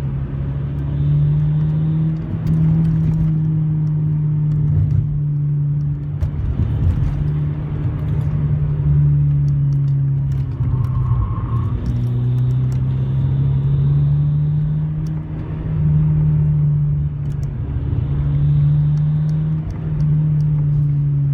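Volkswagen MK6 GTI's turbocharged 2.0-litre four-cylinder engine and road noise heard while driving, with a steady engine note that dips briefly every few seconds.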